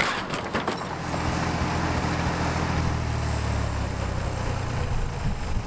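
Small farm tractor's engine running steadily at idle. During the first second there are a few knocks and clatter of the wooden well house and its metal siding settling after being pushed over.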